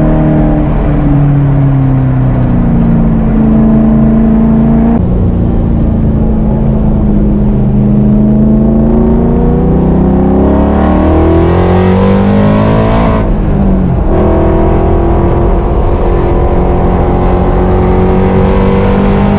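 Factory Five Type 65 Daytona coupe's Ford Coyote V8 under way on track, heard in-car. The revs ease off and hold, then climb hard for several seconds before falling away sharply about 13 seconds in, then pull steadily again.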